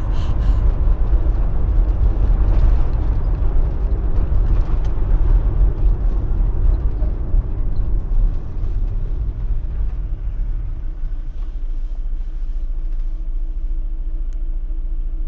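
Fiat Fiorino van driving, heard from inside the cabin: a steady low rumble of engine and tyres on the road. About two-thirds of the way through it eases as the van slows to a stop, leaving a steadier idling hum.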